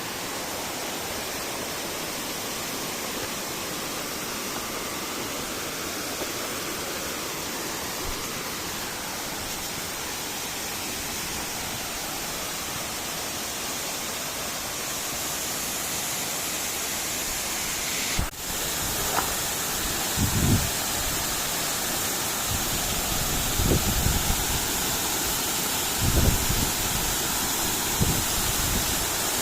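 Mountain river rushing steadily, an even hiss of flowing water. About eighteen seconds in there is a brief break, after which the water is a little louder and a few low thumps hit the microphone.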